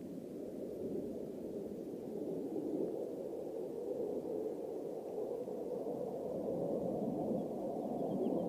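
Distant fighter-jet engine roar: a steady, low, rushing noise that slowly grows louder.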